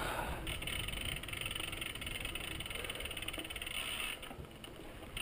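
Mountain bike rolling downhill on dirt singletrack: tyres on the dirt and the bike rattling, with wind rumbling on the microphone. It turns quieter about four seconds in and picks up again near the end.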